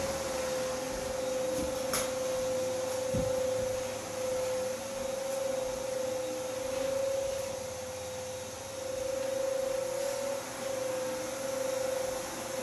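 A steady machine hum with one held tone, over a soft hiss; a single sharp click about two seconds in.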